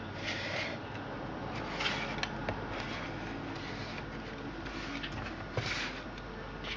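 Soft scraping and rustling with a few faint ticks as a chainsaw is handled and turned over, in three short patches over a low steady background.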